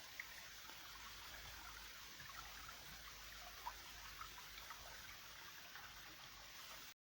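Faint trickling of a small forest creek, a steady low hiss of running water with small scattered splashes, which cuts off suddenly near the end.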